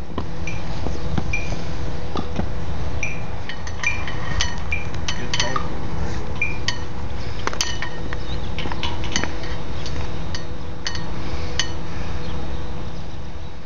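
Metal flagpole halyard clips clinking irregularly against each other and the pole as the flag is clipped on, many small sharp clinks with a brief ring, over a steady low rumble.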